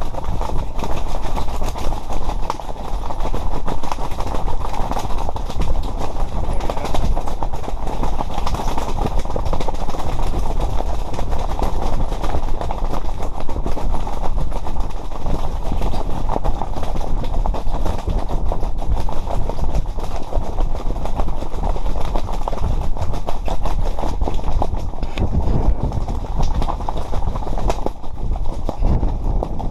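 Heavy wind blasting across the microphone, a loud continuous rumbling rush with no let-up.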